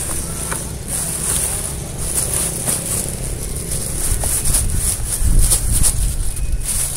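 Plastic bag and potting soil being handled by gloved hands: crackling rustles and scrapes, densest in the middle, over a low rumble of wind on the microphone and a steady high hiss.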